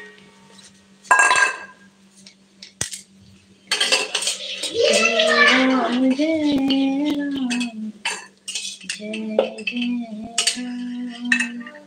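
Metal kitchen utensils and pots clinking and clattering while food is being prepared, with a loud clattering burst about a second in.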